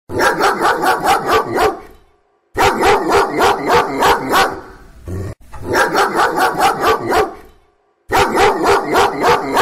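A dog barking in four runs of quick, evenly spaced barks, about four a second, each run about two seconds long with short pauses between.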